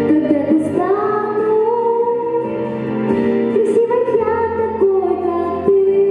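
A girl singing a slow song into a microphone over instrumental accompaniment, holding long notes that glide between pitches.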